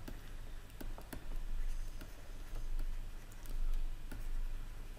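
Pen stylus tapping and scratching on a tablet screen during handwriting: a scatter of light, irregular clicks over a steady low hum.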